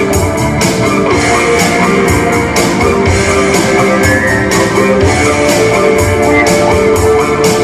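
Instrumental rock music, loud and steady, with electric guitar over a regular drum beat.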